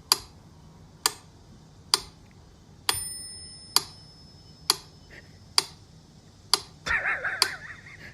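Sharp ticks about once a second, like a clock ticking, with a short bell-like ding about three seconds in and a wavering pitched cry near the end.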